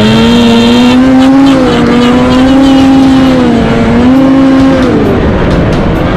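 Polaris Assault snowmobile's turbocharged two-stroke engine running hard, its pitch rising and falling with the throttle. It drops off about five seconds in and starts climbing again near the end.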